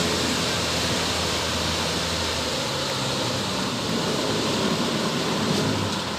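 Kubota DC-105X combine harvester's diesel engine running, under a steady rushing, splashing noise of its tracks churning through wet shrimp-pond mud and water.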